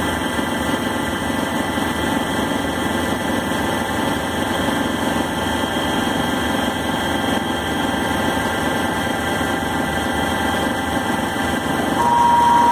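Syil C6-B mini CNC lathe running, its spindle turning the workpiece with a steady motor hum and whine during a grooving pass with a high-speed-steel part-off blade. Near the end a steady whistle-like tone sets in and the sound gets louder.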